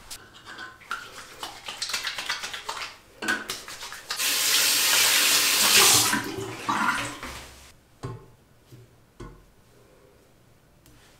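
Water running from a single-lever bathroom faucet into a ceramic basin while hands are rinsed under it. There are splashes in the first few seconds, then a loud steady stream for about two seconds. The stream dies away and the tap is shut off, leaving a few faint clicks of the metal lever.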